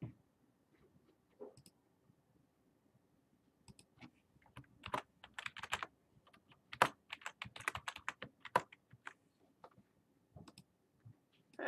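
Typing on a computer keyboard: a few scattered key clicks, then a quick run of keystrokes through the middle, tailing off near the end.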